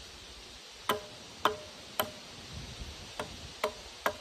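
Hatchet blows on a peeled log, six sharp knocks in two groups of three, each with a short ring.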